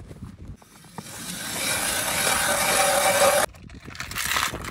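A long scraping rustle that grows louder for a couple of seconds and cuts off abruptly, as an orange plastic tackle box is pulled out from beside a seat box on the ice; a shorter scrape follows near the end.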